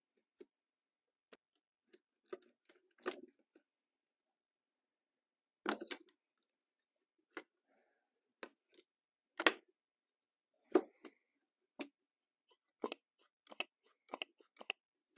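Hands working an ATV carburetor loose from its rubber intake boots and hoses: scattered clicks and knocks of plastic, rubber and metal parts, with short gaps between them and two sharper knocks a little past halfway.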